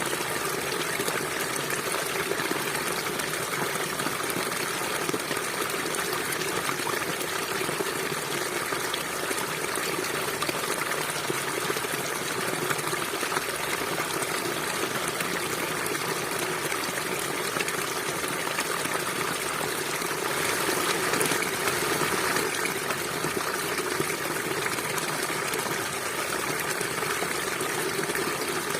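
River water flowing steadily over rocks, a constant rushing and gurgling that swells slightly about two-thirds of the way through.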